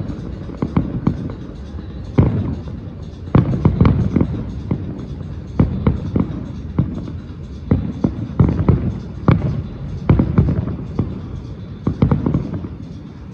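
Fireworks display: a rapid series of sharp bangs and deep echoing booms, coming in clusters every second or so.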